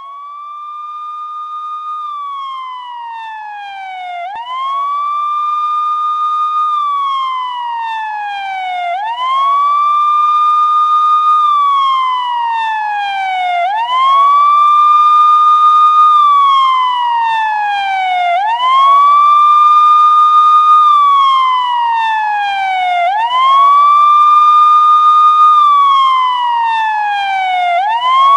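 Police siren wailing: each cycle climbs quickly, holds briefly at the top, then glides slowly down, repeating about every four and a half seconds. It grows louder over the first half, then holds steady.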